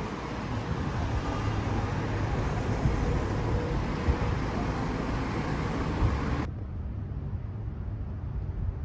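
Road traffic on a city street: cars going by in a steady wash of engine and tyre noise. About six and a half seconds in it cuts abruptly to a much quieter, dull background hum.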